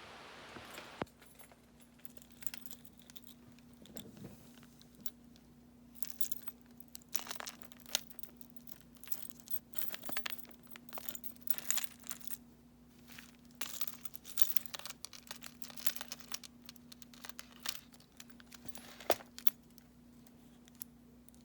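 Pages of a handmade paper junk journal, mixed papers and old book pages, being turned and handled: irregular crisp rustles and crinkles with small sharp clicks, over a faint steady hum.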